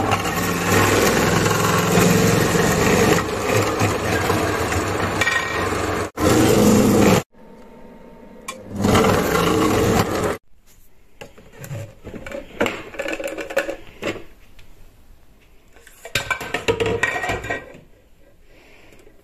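Monsieur Cuisine kitchen machine driving the SILVERCREST food-processor attachment's stainless grating disc, shredding a carrot: a loud whirring grind for about six seconds, a short second run that stops about seven seconds in, and another burst around nine to ten seconds. After that, quieter knocks and clatter of the plastic attachment parts being handled.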